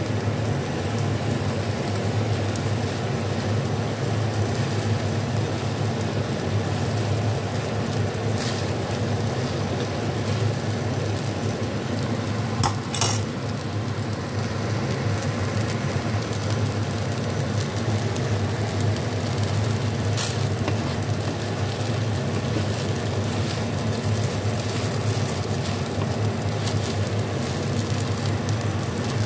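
Bihon rice noodles with egg and carrot sizzling in a nonstick wok while being stir-fried and tossed with a spatula, with a few sharp clicks along the way. A steady low hum runs underneath.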